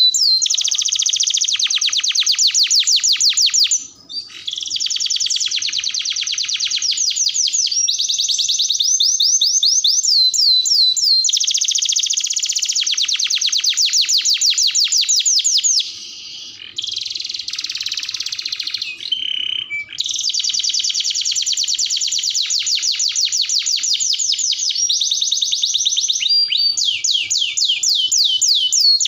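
Domestic canary singing a long, loud song of fast rolling trills, each a rapid run of one repeated note, changing from trill to trill. There are short breaks about four seconds in and about sixteen seconds in.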